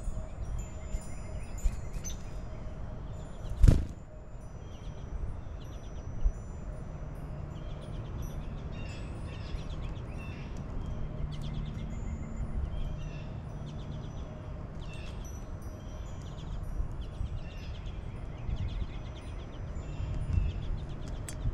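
Small songbirds chirping and calling in short, scattered high notes over a steady low outdoor rumble, with one sharp thump nearly four seconds in.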